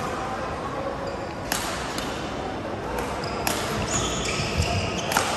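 Badminton rackets striking the shuttlecock in a doubles rally: about four sharp cracks, irregularly spaced, over a steady hall din, with short high squeaks of court shoes on the synthetic mat near the middle.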